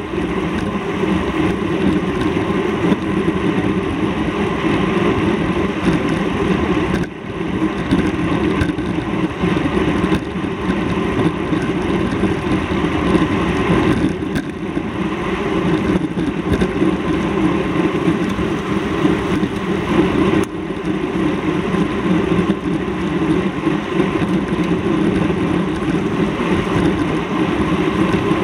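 Steady rumble of a moving vehicle, a continuous noise without distinct beats or pitch, dipping briefly twice.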